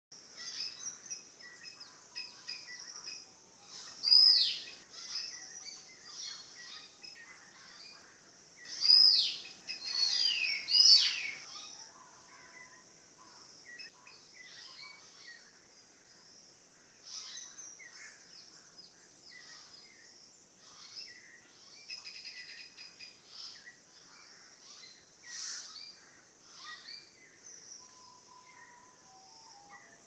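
Songbirds singing and chirping, many short calls overlapping, with loud down-slurred whistled phrases about four seconds in and again around nine to eleven seconds.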